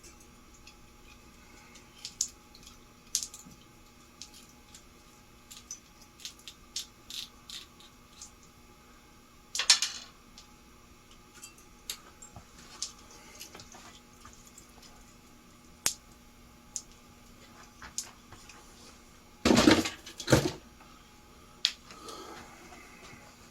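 Small parts of a ceiling fan switch housing being handled and fitted back together: scattered light clicks and taps, a louder clatter about ten seconds in, and a longer burst of clattering near the end.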